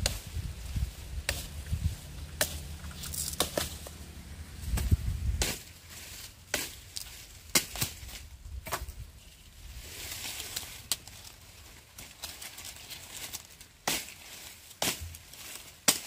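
A blade chopping sugarcane stalks: about a dozen sharp chops at irregular intervals, with a low rumble for the first five seconds or so.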